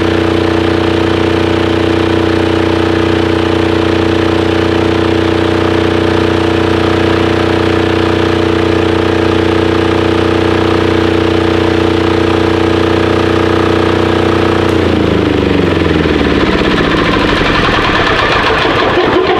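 Titan 7500 diesel generator's engine running loud and steady, then shut off about 15 seconds in, its pitch falling as it slows through a few seconds of separate knocks to a stop.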